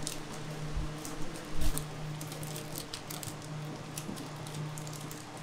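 Metal bench scraper cutting through slabs of crunchy peanut candy on a work table, and cut bars being handled: many short crisp clicks and crunches, with a heavier knock about a second and a half in. A low hum comes and goes behind it.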